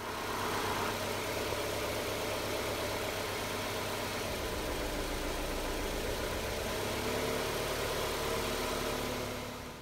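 A four-cylinder car engine idling steadily, with a misfire on cylinder 3.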